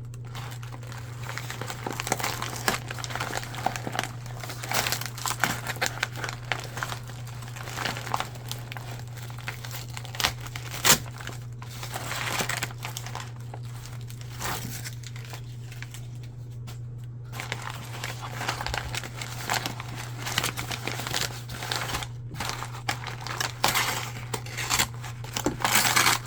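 Packaging being unwrapped by hand: irregular crinkling and rustling, with a short lull a little past the middle. A low steady hum runs underneath.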